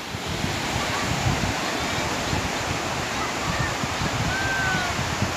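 Steady wash of sea surf and wind on an open beach, with a few short, faint high calls near the end.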